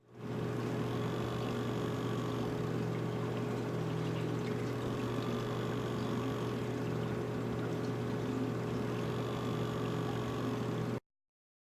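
EcoTech Marine VorTech MP40QD Quiet Drive aquarium powerhead running: a steady motor hum with a faint higher whine that rises and falls about every four seconds as the pump cycles its speed in a wave mode. Cuts off suddenly near the end.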